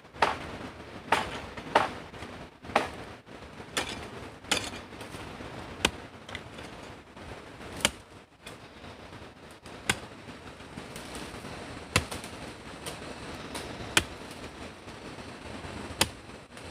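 A tool striking stone in sharp, separate taps, several in quick succession at first, then about one every two seconds, each with a short ring.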